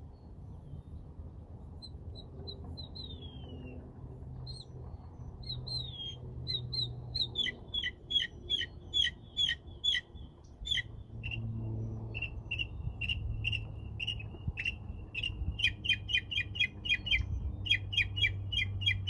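Northern mockingbird singing. It gives a few scattered notes and a falling slurred whistle at first. From about six seconds in it runs strings of quick, sharp repeated notes, several a second, packed tightest near the end.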